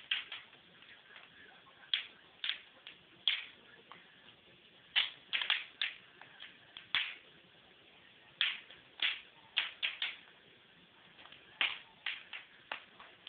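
Wood fire crackling in a fireplace: irregular sharp pops and snaps, sometimes in quick clusters, with quiet gaps between.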